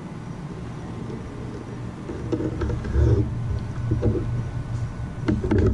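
Fillet knife cutting pin bones out of a tilefish fillet on a wooden cutting board, with louder cutting sounds about halfway and near the end and a few sharp taps just before the end, over a steady low hum.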